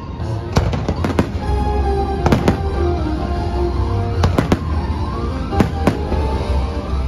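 Fireworks shells bursting, several sharp bangs, some in quick pairs, over music and a steady low rumble.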